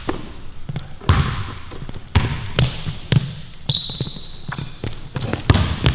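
Basketball dribbled hard on a court, bouncing about once a second. Several short high-pitched sneaker squeaks come in the second half as the players cut and shift.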